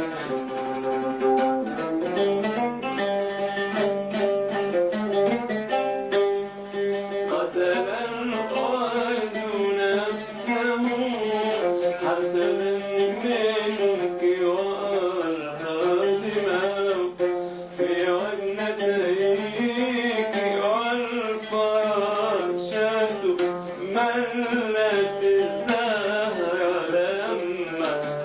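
Arabic classical song music: a plucked string instrument plays steady notes, and from about seven seconds in a wavering, richly ornamented melody line takes over above it.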